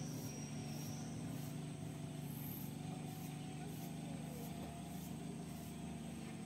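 Steady low mechanical hum, with faint high-pitched insect pulses repeating about every two-thirds of a second.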